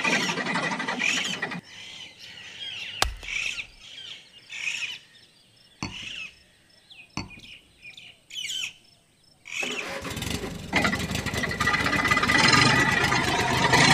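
Small electric motors of homemade toy tractors whirring, stopping about one and a half seconds in. In the quieter gap there are a few sharp metal chain clinks and birds chirping. The motors start whirring again about ten seconds in.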